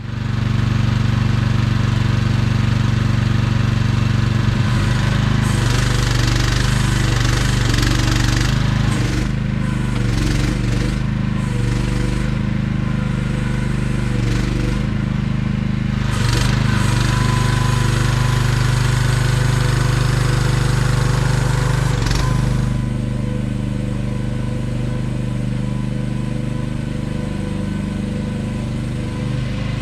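AGT QH12R 1-ton mini excavator's engine running steadily, with extra clatter and noise from the machine working through the middle. It settles to a quieter, steadier run about 22 seconds in.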